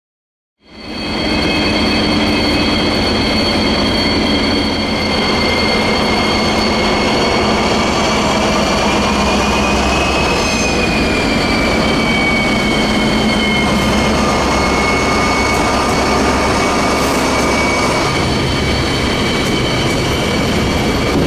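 SNCF BB 67400 diesel locomotive hauling a rake of RIB coaches as it pulls away: a steady low rumble under high, sustained wheel squeal, whose pitch bends up and back down about ten seconds in.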